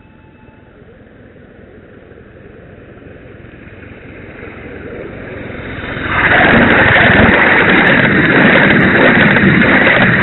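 Live-steam 7¼-inch gauge model of a GWR King Class 4-6-0 locomotive running, growing steadily louder over about six seconds, then loud and dense for about four seconds before falling away sharply at the end.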